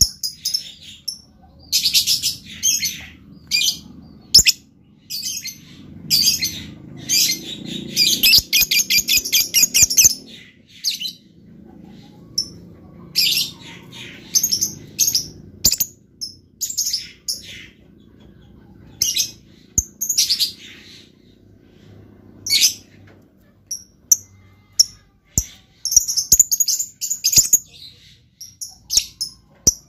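Lovebird singing in bursts of shrill, high chirps, with a long rapid chattering trill about eight seconds in.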